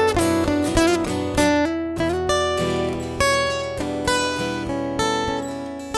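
Two acoustic guitars playing an instrumental passage without singing: a melody of plucked notes over strummed chords.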